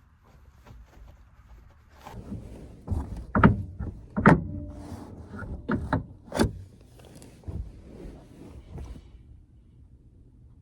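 A vehicle door being worked: a run of clunks and knocks for several seconds, the loudest about three to four seconds in, with a brief squeak or rolling sound after one of them.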